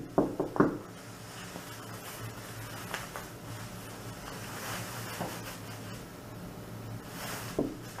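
Room tone of a small interview room on a surveillance recording: a steady low hum with light hiss, and a few short clicks in the first second.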